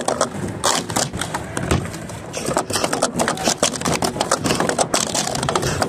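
Hard plastic sport-stacking cups clacking and scraping in a rapid, continuous run as they are upstacked and downstacked on a stacking mat at competition speed during a cycle.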